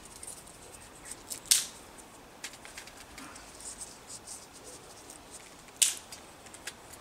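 Dry dead twigs snapped by hand: two loud, sharp cracks, about a second and a half in and near the end, with fainter snaps and crackles between.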